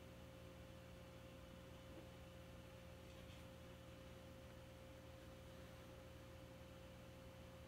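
Near silence: faint room tone with a steady, even hum holding one clear tone.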